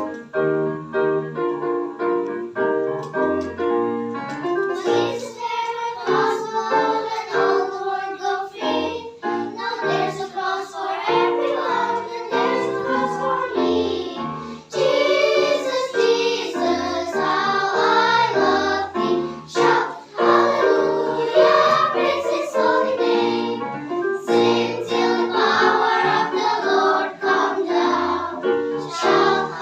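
A children's school choir singing a church song together, with instrumental accompaniment underneath.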